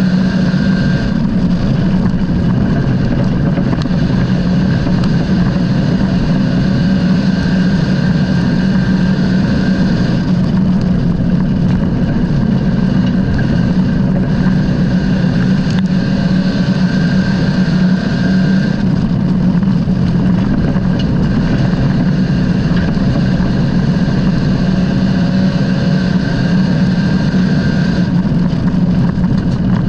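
A vehicle engine running steadily at an unchanging pitch, with no revving up or down.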